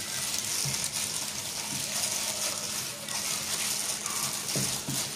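A plastic-gloved hand kneading seasoned fish paste in a pot: a continuous run of soft, irregular squishing, slapping and crinkling noises.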